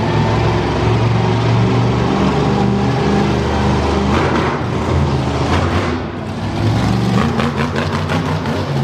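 Jurassic Attack monster truck's engine running at low speed as the truck rolls slowly, its pitch shifting up and down a little.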